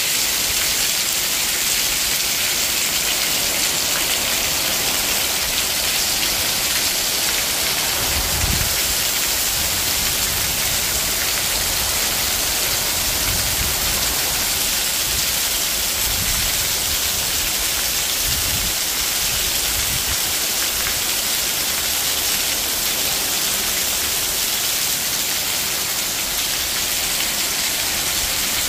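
Heavy rain falling at night, a steady even hiss of drops, with water pouring down in streams close by. A few low rumbles come and go in the middle.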